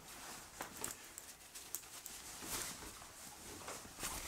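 Faint rustling and soft handling noises, with scattered light clicks, as a wrapped gift is taken out and unfolded.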